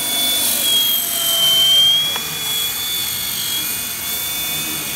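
Tricopter in flight: its three Hextronics DT750 brushless motors and propellers give a steady high whine that wavers slightly in pitch as the throttle changes.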